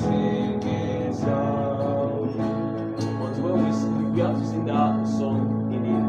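Music: an acoustic guitar strumming chords steadily as hymn accompaniment.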